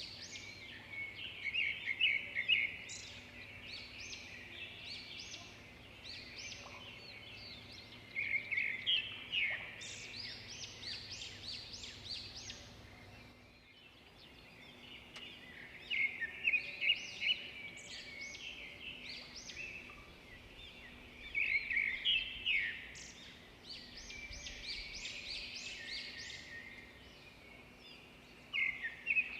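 Wild birds singing and chirping, with louder bursts of rapid twittering every few seconds.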